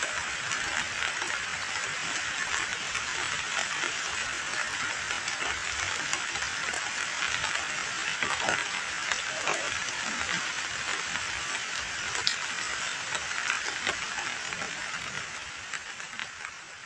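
Rain falling steadily onto a muddy puddle, a dense hiss of countless drops splashing on the water surface. It fades out near the end.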